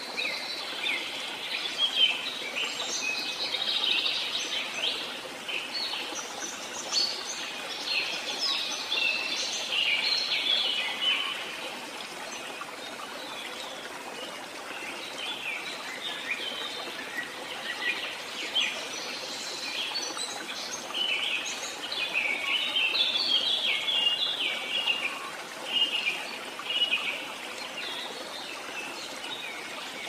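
Many small birds chirping and twittering in a dense chorus over a steady background hiss. The chirps thin out in the middle and pick up again later.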